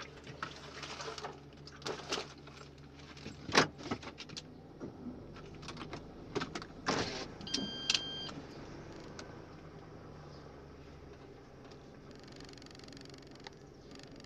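Handling noises inside a car cabin: scattered clicks, knocks and rustles, loudest about three and a half seconds in, over a low steady hum that fades out about eleven seconds in. A short electronic beep sounds about eight seconds in.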